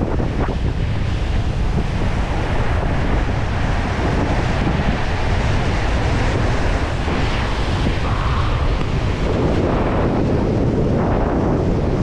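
Strong wind buffeting the microphone over ocean surf breaking and washing against the rocks below, with a surge of wash about two-thirds of the way through.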